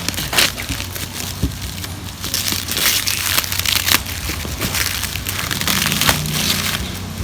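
Packing material crinkling and rustling as a parcel is unwrapped by hand, in a run of irregular crackles.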